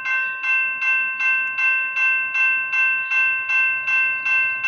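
Railroad grade-crossing warning bell ringing in a steady, even rhythm of about two and a half strikes a second.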